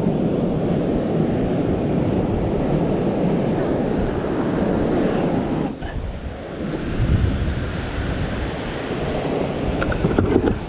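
Wind buffeting the microphone over the steady wash of surf breaking on the beach, easing briefly about halfway through.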